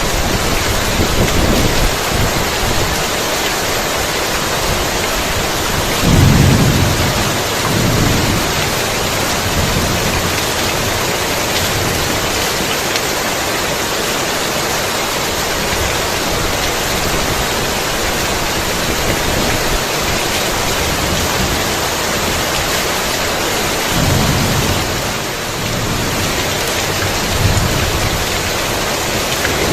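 Heavy rain falling steadily, with low thunder rumbling twice: the louder roll about six seconds in, and another about twenty-four seconds in.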